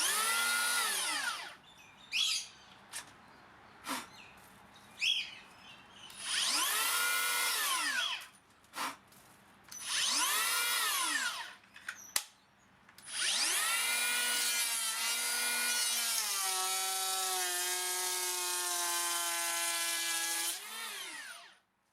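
Makita 40V XGT cordless planer's motor spinning up and winding down in three short bursts, then a longer run in which its pitch drops and holds lower as the blades cut into wood, before winding down near the end.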